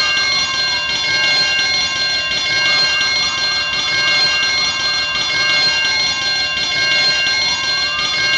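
Electric fire alarm bell ringing continuously, a loud, steady high-pitched ringing made of several overlapping tones. Behind it a fainter tone glides slowly up and then down, twice.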